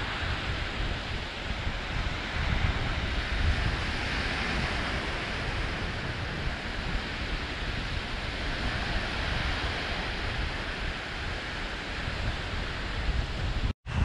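Small waves breaking and washing up a sandy beach: a steady surf wash. Underneath it, wind buffets the microphone in uneven low rumbles. The sound cuts out for an instant near the end.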